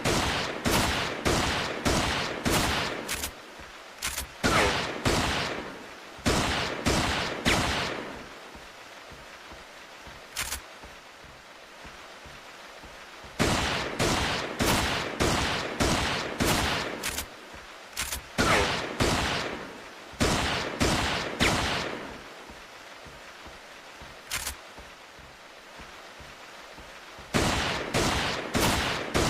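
Revolver gunshot sound effect: sharp shots fired in quick strings at about two a second, with pauses of a few seconds between strings and an occasional single shot.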